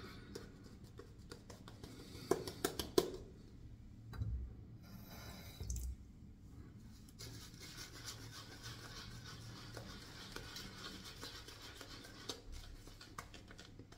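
Synthetic shaving brush rubbing and swirling shaving lather over the face: a faint scratchy rubbing of bristles through foam, with a lull a few seconds in.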